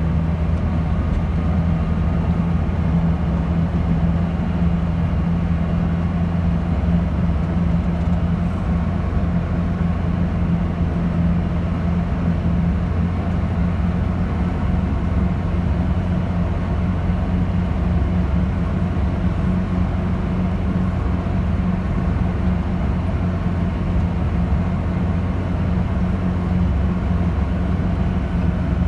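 A car driving at a steady pace: an even low engine hum with road and tyre noise, no bumps or knocks standing out.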